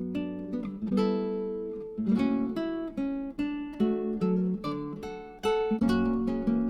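Background music: plucked acoustic guitar playing a strummed, arpeggiated tune.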